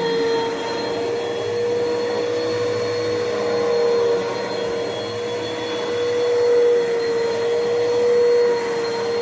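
Bissell PowerForce Bagless 6583 upright vacuum cleaner running steadily, its motor giving a constant whine over the rush of air.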